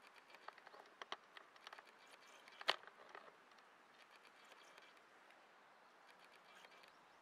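Faint crackling and ticking from a low campfire of embers with sausages grilling over it, including one sharp pop about two and a half seconds in.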